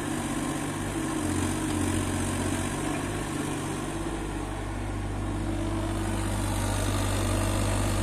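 JCB 8026 mini excavator's diesel engine running steadily while the boom and arm move and the upper structure slews round. The engine note shifts a little in the first few seconds, then settles into a slightly louder, even drone.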